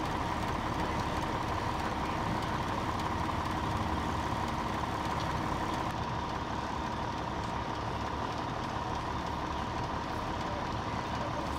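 Diesel fire apparatus idling steadily, a constant engine rumble with a steady hum on top.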